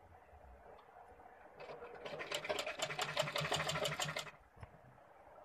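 Sewing machine stitching through layered blouse fabric: a quick, even run of needle strokes starts about a second and a half in and stops a little after four seconds.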